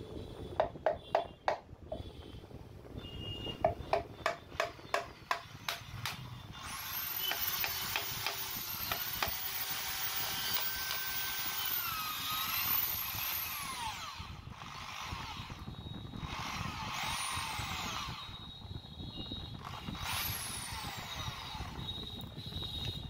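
Two runs of sharp taps as parts of a 16 kg breaker hammer are knocked home with a piece of wood during reassembly. After about six seconds a power tool runs with a steady whir, its whine gliding up and down, stopping briefly and starting again near the end.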